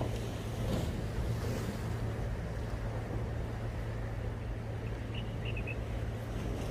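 Seaside outdoor ambience: wind and water noise over a steady low hum, with a few faint high chirps about five seconds in.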